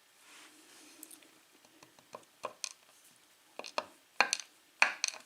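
Small metal lock parts, a padlock plug and its pins, clicking and tapping against a hard work surface as they are handled. The sharp clicks come scattered at first and grow louder and closer together over the last couple of seconds.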